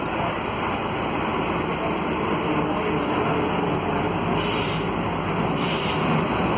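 Cabin noise inside a Volvo B9SALF low-floor city bus under way: its Volvo D9A diesel engine runs steadily, mixed with road noise.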